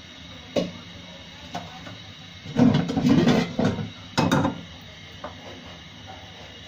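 Metal cookware clattering and knocking as pots are handled and an iron karai is set down on a gas burner, loudest in two bursts from about two and a half to four and a half seconds in, over a steady low hiss.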